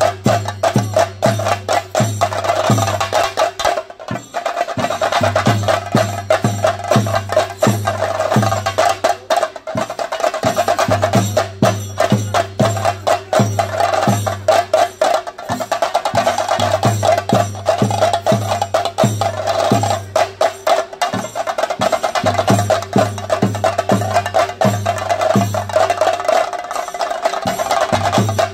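Chenda drums beaten in a fast, continuous melam rhythm: rapid stick strokes over deep strokes about twice a second.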